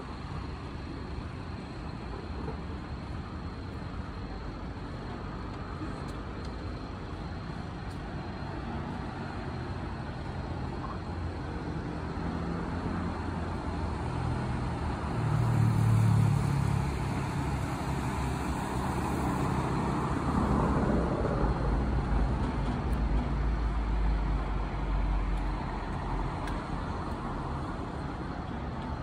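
Electric commuter train running: a steady background hum that grows louder about halfway through, with a low motor hum and then a deep rumble that holds for several seconds before easing off near the end.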